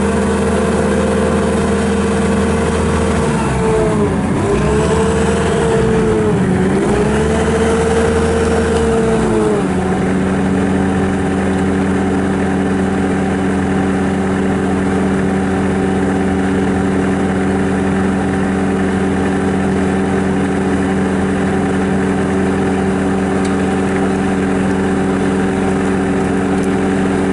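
Bobcat S770 skid steer's Kubota V3800 diesel engine running. Its speed dips and recovers twice in the first ten seconds, then it runs steadily at a slightly lower speed.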